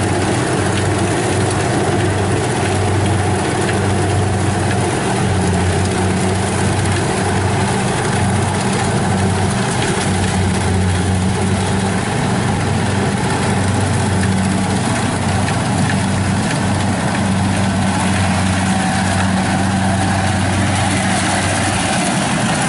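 Kubota DC70 combine harvester's diesel engine running steadily under the load of cutting and threshing lodged rice, a continuous low hum with the clatter of the machine over it.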